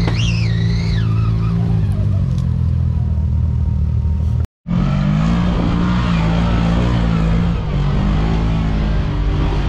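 Side-by-side UTV engines: the first revs up and settles back while crawling down a rock face, then after a sudden dropout about halfway through, a second machine's engine runs steadily with small changes in pitch as it works up a rocky hill.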